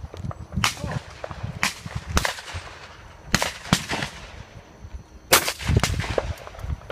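Shotgun firing at flying clay targets: a series of sharp bangs, several in pairs about half a second apart.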